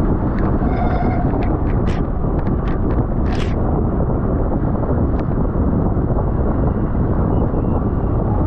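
Steady wind noise on a road cyclist's camera microphone at racing speed, with a dozen or so short, sharp clicks scattered through.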